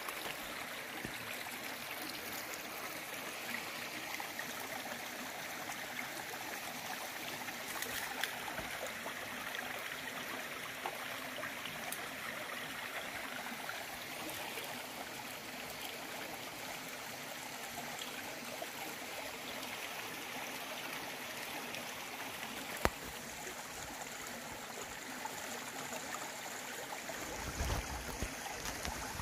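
Steady rush of running water, like a small stream. A brief low rumble comes near the end.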